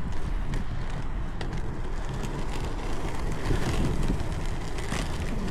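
Inline skate wheels rolling over rough, cracked asphalt: a steady low rumble with scattered sharp clicks as the wheels cross cracks and joints.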